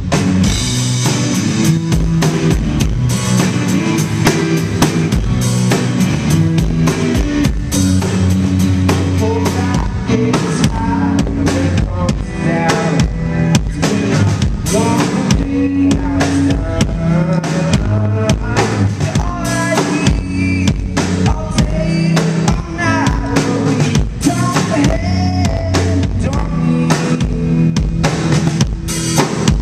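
Live blues-rock duo playing: electric guitar over a drum kit keeping a steady kick-and-snare beat, loud and continuous.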